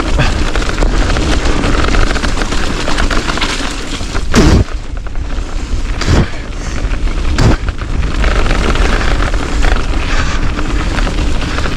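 Wind buffeting an action-camera microphone with a heavy, steady rumble as a bike descends rough trail, tyres rattling over dirt and rock. There are three sharp knocks, the loudest about four seconds in.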